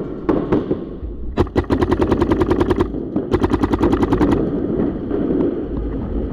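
Paintball marker firing: a few single shots, then two rapid strings of about ten shots a second, each about a second long, starting about a second and a half in and about three seconds in.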